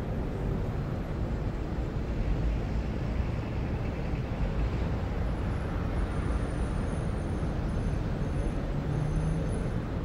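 City street ambience: a steady rumble of road traffic, with vehicles passing continuously.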